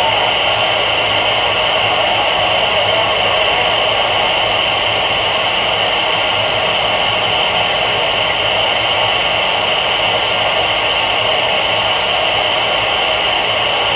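Steady hiss of static from a CB radio's speaker on AM channel 22, with no voice on the channel.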